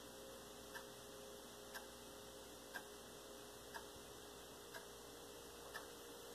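Faint ticking, one tick about every second, over a low steady hum.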